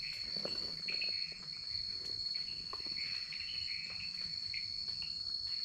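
Night-time jungle insect chorus: a steady high-pitched trill with a lower, wavering chirring beneath it, and a few faint ticks.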